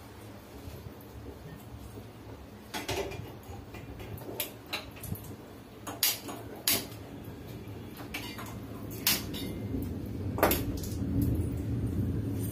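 Stainless steel pots and lids clanking on a gas stove: about seven sharp metal knocks, scattered and irregular, with a low rumble that grows louder in the second half.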